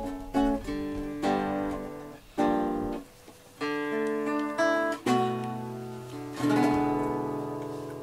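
Acoustic guitar music: a slow run of picked notes and chords, each struck and left to ring out and fade.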